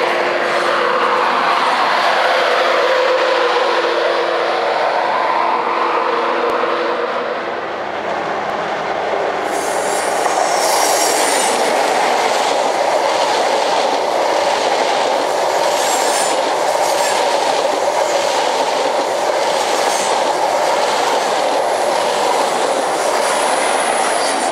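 East Coast express trains passing through a station at speed. First an electric train runs away with a steady hum and tones gliding up and down. Then a High Speed Train's coaches rumble and clatter over the rail joints with brief high wheel squeals, and its Class 43 diesel power car passes close near the end.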